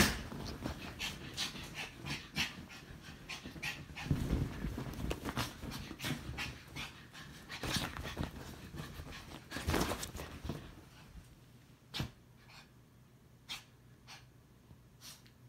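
A dog panting hard and fast while thrashing about on a quilted bed in a hyper fit, the bedding rustling and thumping under it. The panting and rustling die down about eleven seconds in, leaving only a few faint clicks.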